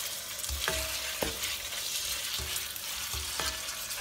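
Raw chicken pieces sizzling in hot oil in a non-stick wok as a spatula stirs and turns them, with a steady sizzle and several knocks of the spatula against the pan that ring briefly.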